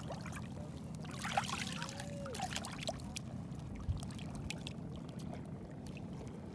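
Seawater splashing and trickling as a fish is rinsed and cleaned by hand in shallow water, in irregular splashes with the biggest about a second and a half in, over a steady low background noise.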